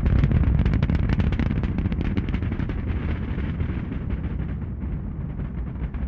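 Rocket launch exhaust: a loud, deep rumble shot through with dense crackling, slowly fading.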